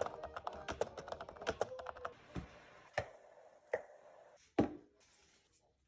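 A quick, dense run of clicks and taps for about two seconds, then four separate knocks, the last one the loudest.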